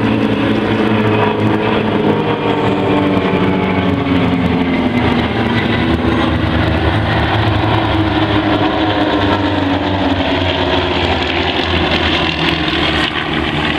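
Propeller aircraft engine running loudly as the plane flies past, its pitch slowly falling over the first half, then a steady engine drone.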